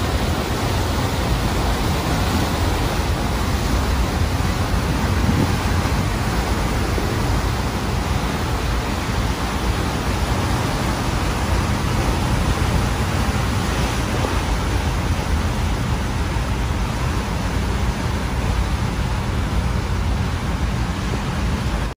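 Steady rushing of sea water churned up in a ship's wake, with a heavy low rumble underneath.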